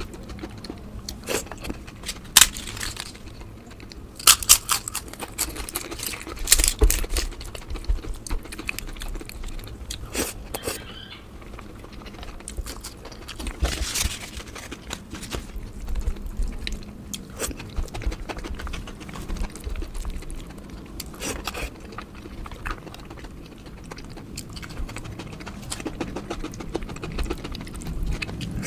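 Close-miked chewing and crunching of food, with irregular crisp bites and wet mouth sounds, the loudest crunches coming in a few clusters.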